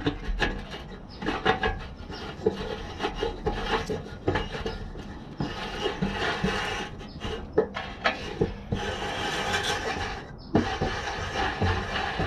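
Hand tools and parts being worked during bumper assembly: a scraping, rasping noise broken by many sharp clicks and knocks, with a longer stretch of scraping about nine seconds in.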